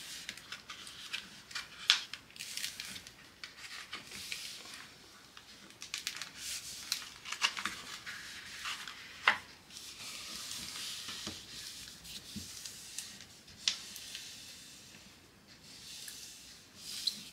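Hands rubbing and smoothing the glossy release paper and film of a wrinkled diamond painting canvas. The paper rustles and crinkles, with scattered sharp crackles.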